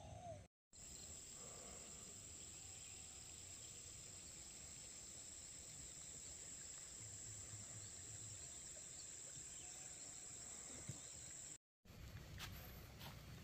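Faint insect chirping: a single steady high-pitched trill that does not vary. It is broken by two brief dropouts to total silence, about half a second in and near the end, and a few faint ticks follow the second one.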